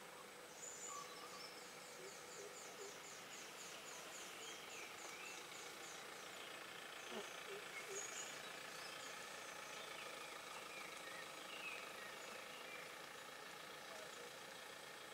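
Faint birdsong in forest: one bird gives a rapid run of short, high, downward-sweeping notes, about three a second, for the first few seconds, while other birds chirp now and then over a faint steady high hum.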